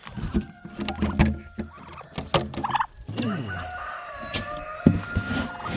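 Farmyard chickens and turkeys calling: clucking and gobbling, with a long held call like a rooster crow over the second half. Short knocks and rattles run through it.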